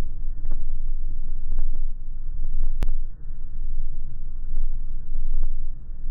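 Car driving through a heavy storm: a loud, uneven low rumble, with a sharp click nearly three seconds in.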